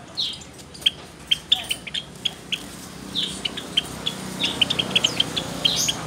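A flock of caged Java sparrows chirping: many short high chips with a few longer downward-sliding calls, crowding closer together in the second half.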